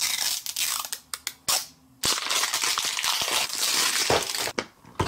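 Crinkling and tearing of the plastic wrap and label seal being peeled off a Mini Brands capsule ball: a short stretch at the start, then a longer one from about two seconds in.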